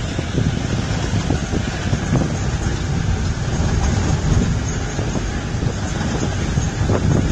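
A vehicle driving over a rough dirt track, heard from inside the cabin: a steady engine and road rumble with constant small knocks and jolts, and wind on the microphone.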